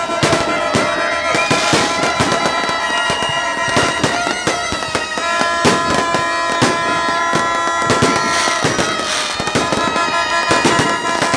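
Fireworks going off in a dense barrage of quick bangs and crackles. Music with held notes plays loudly underneath.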